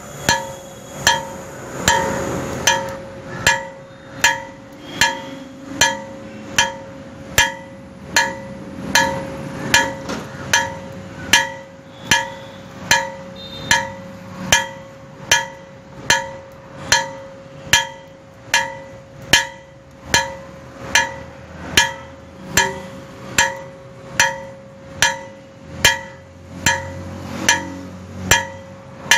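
Blacksmith's hammer striking steel on an anvil in a steady, even rhythm, about three blows every two seconds, forging 12 mm square stock. Each blow rings out metallically, and the ring carries on between strokes.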